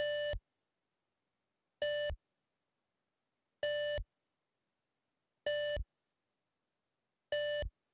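Sonar 'pings' from a MEGA65 BASIC program: five identical short electronic beeps at one pitch, each just under half a second long, evenly spaced a little under two seconds apart. Each is a bright, buzzy synthetic beep rather than the deep ping of real sonar.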